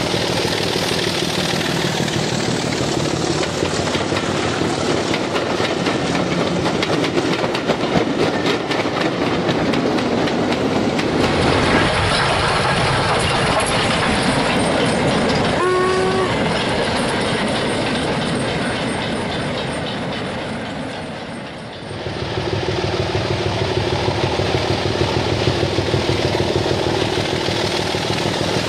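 Model railway locomotives running along the layout track, with a steady motor hum and the clatter of wheels over rail joints. About halfway through there is a brief rising whistle, and the sound changes twice as the shots change.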